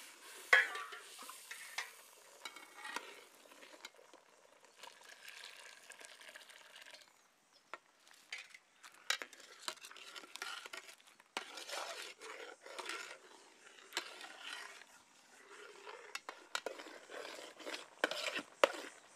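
Metal ladle stirring wet semolina in a metal pot, with a faint sizzling hiss early on as hot water meets the ghee-roasted rava. Later, scattered clicks and scrapes of the ladle against the pot.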